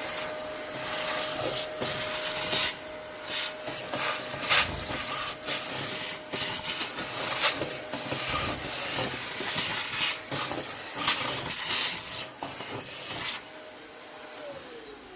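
Small electric vacuum cleaner running while it cleans dirt out of an emptied car battery tray. It gives a steady motor whine under a rushing-air hiss that swells and dips as the nozzle is moved about. Near the end the air noise stops and the motor winds down, its pitch falling.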